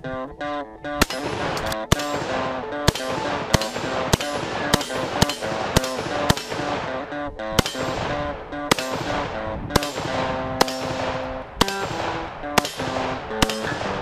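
A rifle fires about eighteen shots in quick succession, each a sharp crack with a trailing echo, coming roughly every half-second to second, over background music.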